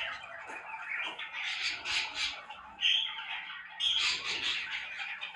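A pair of cockatiels chattering and squawking, with sharper, louder calls about three and four seconds in.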